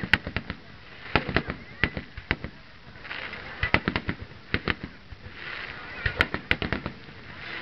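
Aerial fireworks shells bursting: a string of sharp bangs at uneven intervals, several coming in quick clusters.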